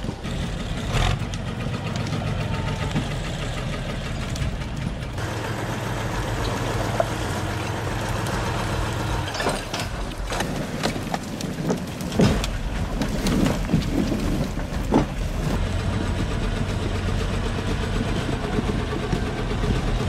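SAME Laser 110 tractor's diesel engine running under load as it drags logs over rough ground, its note shifting a few times. About halfway through come a series of sharp knocks and cracks.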